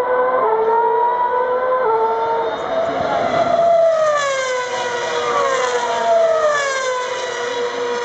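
Formula 1 cars' high-revving engines at race speed. In the first two seconds the pitch climbs and drops back at each upshift. Then the pitch falls in long glides as the cars pass and pull away.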